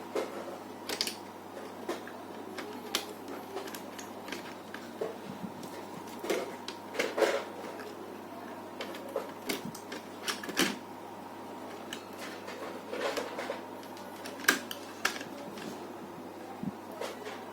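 Irregular light clicks and taps of small laptop parts and connectors being handled and fitted during reassembly, over a steady low hum.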